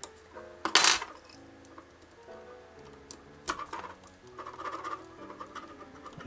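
Small metallic clicks and clinks of a small Phillips screwdriver working the battery-cover screw on a Mitutoyo Digimatic caliper's steel reading unit, with the loudest clatter about a second in and a few lighter ones later.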